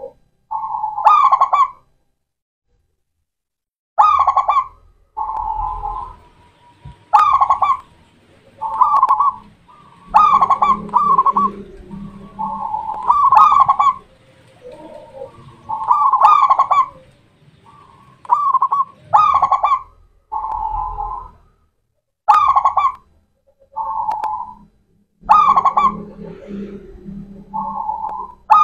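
Zebra dove (perkutut) cooing: a long run of short, trilled coos, repeated every second or two, with a brief pause about two seconds in.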